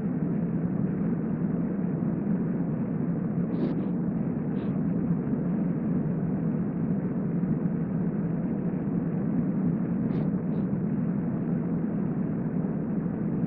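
Steady low hum of background room noise. A few faint soft ticks fall about a third of the way in and again about three quarters of the way through.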